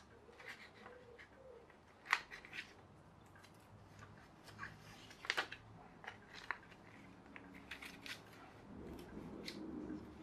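Scissors snipping short cuts into a sheet of printer paper: several separate sharp snips, the loudest about two and five seconds in.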